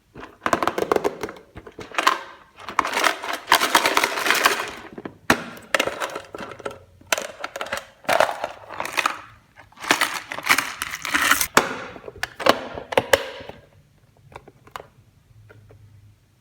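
Toy packaging being unwrapped and handled: dense crackling and crinkling in repeated bursts, dying away to a few light clicks near the end.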